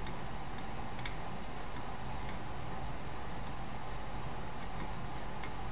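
Faint, irregular ticks, about one a second, as a chisel-tip soldering iron works solder and flux along the pins of an SSOP chip, over a steady background hum.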